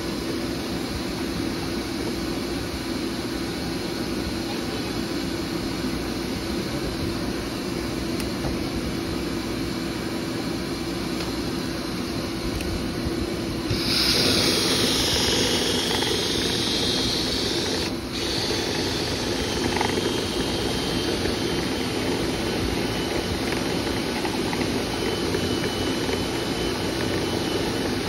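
Dryer vent cleaning equipment running steadily: a motor drone with rushing air. About halfway through it turns louder and hissier for a few seconds, then settles a little below that.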